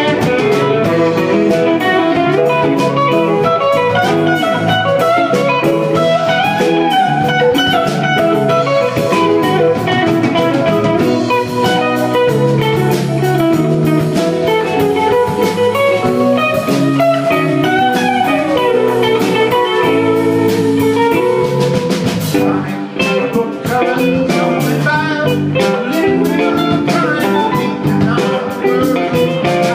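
A live rock band playing: electric guitars, keyboard, bass guitar and drum kit.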